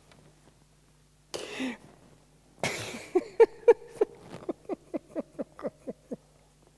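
A man breathes out heavily, then breaks into a run of short, rhythmic laughs, about four a second, loudest at first and trailing off.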